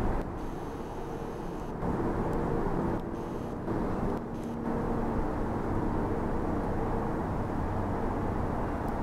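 Steady low drone of a distant engine, with faint steady pitched tones over a low rumble.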